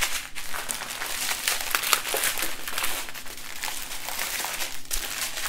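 Clear plastic packaging crinkling and rustling as strips of bagged diamond-painting drills are handled, with many small crackles throughout.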